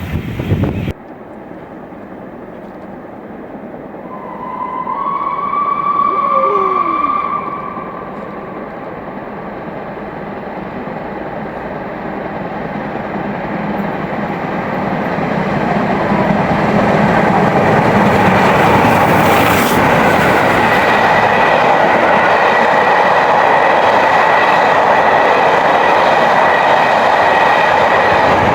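A train on the rails growing louder as it comes close, its wheels making a steady heavy rumble that is at its loudest through the last third. A short pitched tone sounds a few seconds in, and a faint steady high tone rides over the rumble later on.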